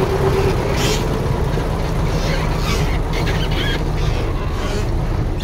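Diesel engine of heavy earthmoving machinery running steadily with a deep rumble, with scattered short higher-pitched scraping noises over it.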